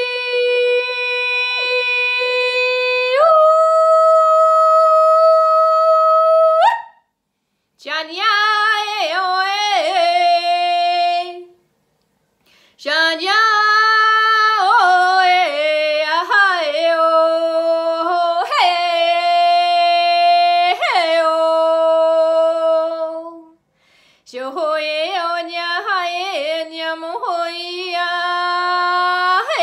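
A woman singing wordless, unaccompanied channeled tones: a long held note that steps up to a higher held note, then three flowing phrases with quick dips and leaps in pitch, separated by short pauses.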